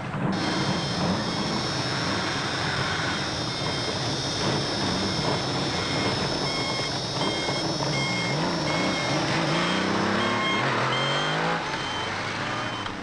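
Motorcycle engines running as two bikes ride off, their pitch wavering with the throttle and climbing steeply about ten seconds in as one accelerates away. A short high beep repeats about once a second through the middle of the sound.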